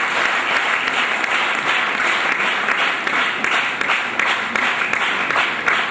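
Large audience applauding steadily, many hands clapping together without a break, in welcome of a guest just introduced.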